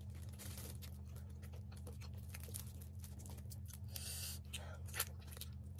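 Cooked crab being pulled apart by hand: a run of small cracks and snaps from the shell, with brief tearing rasps about half a second and four seconds in. Under it runs a steady low hum.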